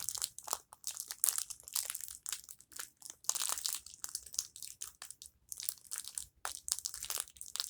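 Plastic packaging crinkling and crackling in quick, irregular bursts as hands handle and pull at a tightly wrapped package.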